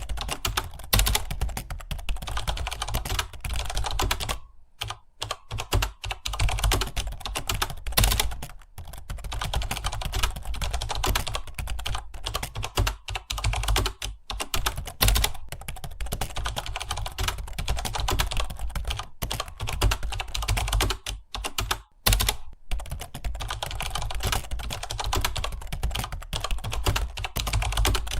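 Computer keyboard typed on rapidly and continuously, dense key clicks with a few brief pauses between bursts.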